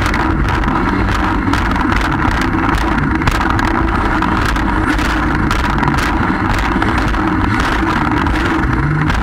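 Jet ski running at speed, its engine and jet pump a steady rumble under loud rushing and splashing water from the churning wake, with frequent short slaps of spray.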